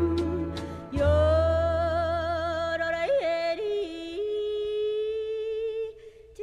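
A woman yodelling with country band accompaniment: a warbling line with a quick leap up and back down in pitch about three seconds in, then a long held note that stops shortly before the end.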